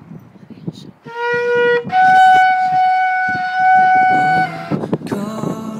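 A long spiral shofar (ram's-horn trumpet) blown: a short lower note, then a jump up to a higher note held steadily for about two and a half seconds before it stops.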